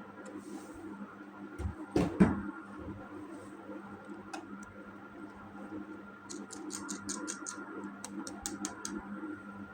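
Hard plastic toy pieces being handled. There are two sharp knocks about two seconds in, then near the end two quick runs of light clicks or taps, about seven a second, over a steady faint hum.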